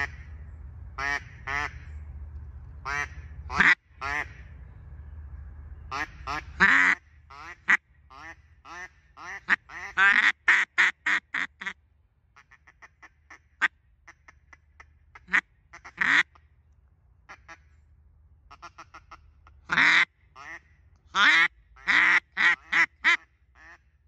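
Hand-blown duck call sounding series of mallard-style quacks in groups: a fast run of loud quacks about ten seconds in and another near the end, with softer short quacks between. It is a beginner's calling, which the caller himself admits wasn't the best.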